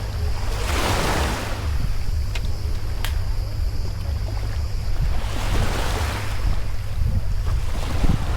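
Wind buffeting the microphone in a steady low rumble over sea water, with two swishing swells of water, about a second in and again just after five seconds.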